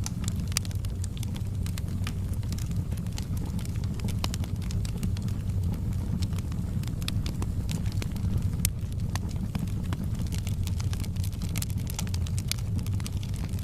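Fire burning in a fireplace: a steady low rumble with frequent, irregular sharp crackles and pops.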